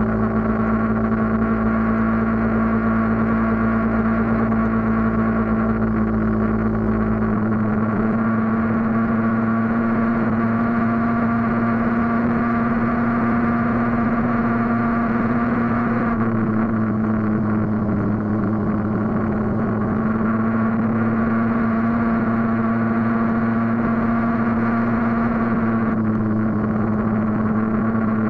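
Vehicle engine running at a steady cruise, heard from on board, an even hum over road noise. A deep low rumble underneath drops away about seven seconds in.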